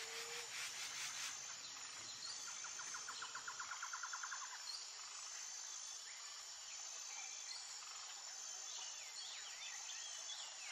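Faint outdoor nature ambience: insects chirping steadily and high, with a short rapid trill a couple of seconds in and a few bird chirps near the end.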